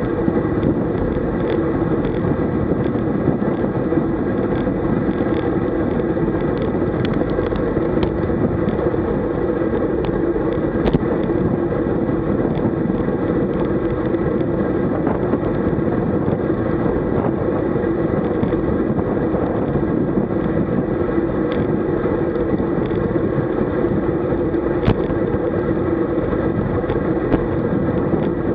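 Steady rush of wind and tyre noise from a road bike riding at about 45 km/h, picked up by a bike-mounted camera, with occasional light ticks.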